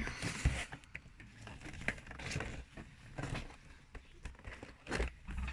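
Cardboard Funko Pop box being handled and worked open: scattered small clicks, taps and rustles, with a firmer knock near the end.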